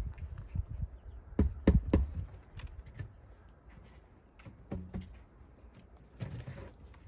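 Baby rabbits shuffling and hopping about in a wooden hutch with a wire-mesh floor: a scatter of light knocks and scratches, loudest in a quick cluster about one and a half to two seconds in.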